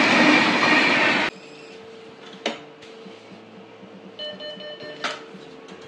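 A passenger train passing with a loud steady rumble, cut off suddenly about a second in. Then the quieter hum of a cash machine, with a click, a short beeping tone and another click as banknotes are taken from its slot.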